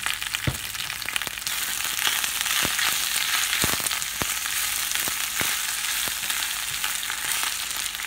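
Spinach leaves sizzling in hot oil in a nonstick frying pan: a steady hiss that grows louder about a second and a half in, with scattered light clicks of a spatula stirring the leaves against the pan.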